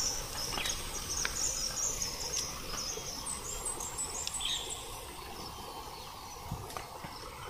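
Insects trilling in a high, steady band over even outdoor background noise, with a run of short, quick rising chirps from about three to four and a half seconds in.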